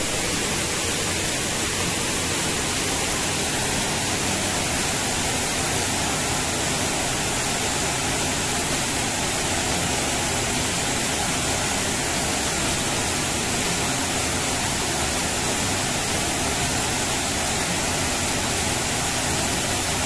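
Waterfall pouring into a rock pool: a steady, unbroken rush of falling water.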